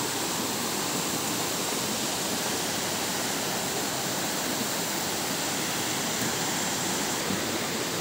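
Steady rush of water from a rocky forest stream spilling over boulders in a small cascade.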